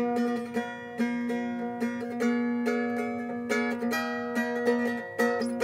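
Acoustic guitar played solo: a repeating pattern of plucked notes in a steady rhythm, ringing over a sustained low note.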